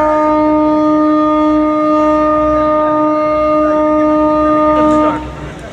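A vessel's horn sounding one long, steady blast, stopping about five seconds in.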